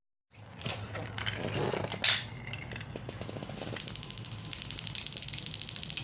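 Marbles rolling along a track: a sharp click about two seconds in, then a fast, even ticking from about the middle on.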